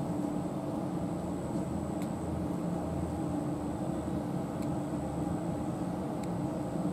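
Steady low mechanical hum with a thin, constant high whine above it and a few faint clicks.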